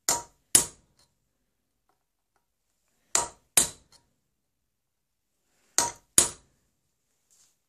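Hammer striking a punch on a steel rear sight: six sharp blows in three pairs, each pair about half a second apart, punching the sight to fix it fast in its groove on a flintlock pistol barrel.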